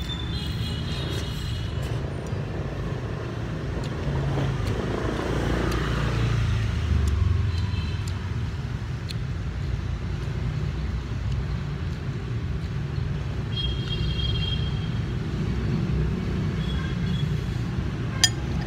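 Steady rumble of street traffic, with a motor vehicle passing close by about five seconds in. A single sharp click comes near the end.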